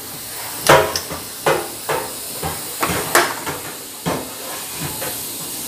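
Steady hiss of a gas stove burner heating an empty kadhai, with about ten short irregular clinks and knocks over it; the loudest comes about three-quarters of a second in.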